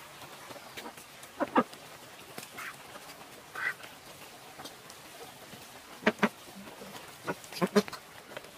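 White domestic ducks quacking in short, scattered calls as they feed: one about a second and a half in, a couple of fainter ones in the middle, a pair around six seconds and a quick cluster near the end.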